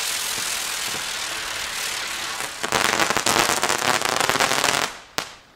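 A 'Crackling Bird' fire-bird firework in flight: a steady hissing as it burns, then, about halfway through, a dense run of crackling that stops suddenly near the end, followed by one single crack.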